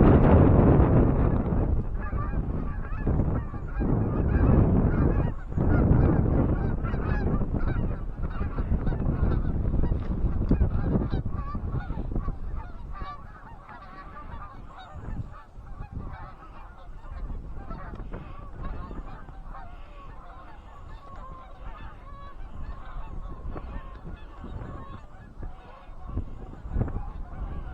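A large flock of Canada geese honking, many calls overlapping. Wind rumbles on the microphone, heaviest through the first half and easing about halfway through.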